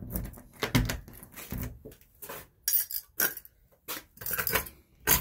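Keys jangling with a string of irregular metal clicks and knocks as a door is locked up.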